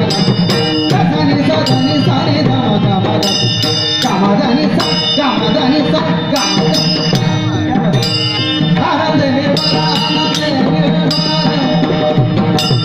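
Varkari bhajan music: singing of a devotional tune (chal), accompanied by a hand drum and small hand cymbals (taal) that clash in quick clusters of two or three strikes every second or so.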